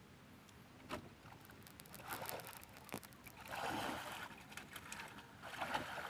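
Water splashing and swamp plants rustling as a person wades through a shallow weedy swamp, in several uneven surges. There is a sharp knock about a second in.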